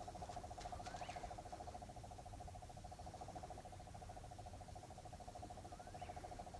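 Night-time animal calling: a continuous, fast-pulsing low trill, with a short rising call about a second in and another near the end.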